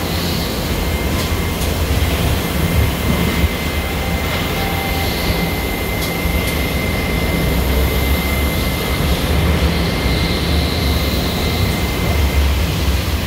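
Steady factory-floor machine noise from a line of KUKA spot-welding robots: a low rumble with a thin, steady high whine over it that stops near the end, and a few faint clicks.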